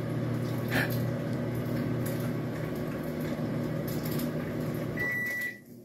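A steady electrical hum from a running appliance, with a short click about a second in; the hum stops near the end as a high electronic beep sounds.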